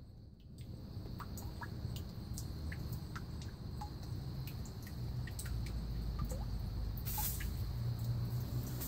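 Water dripping and plinking into a tilapia tank fed by hoses: scattered small drips over a low steady rumble that grows louder, with a brief rustle about seven seconds in.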